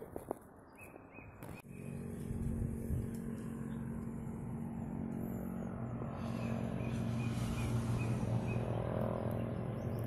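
A steady low engine hum sets in about two seconds in and runs on, with a short series of faint, high bird chirps near the middle.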